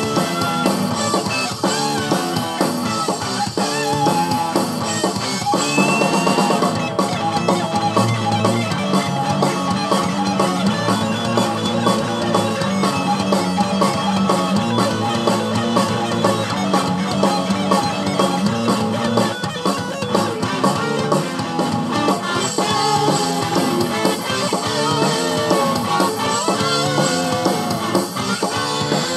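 Rock music with guitar and drums, with a steady beat from about seven seconds in.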